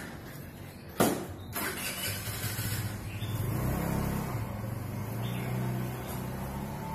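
A single loud knock about a second in, followed by an engine running, its pitch rising and falling.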